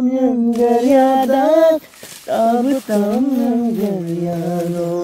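A single voice singing without accompaniment, holding long, wavering notes. A short break comes about two seconds in, and the second phrase settles onto a long, low held note near the end.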